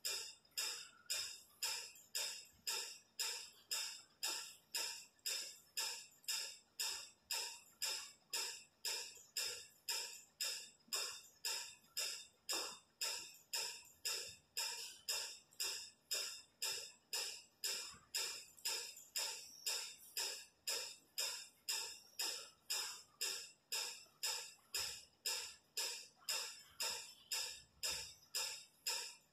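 Background music: a steady, even beat of crisp, hissy percussion strokes, a little under two a second.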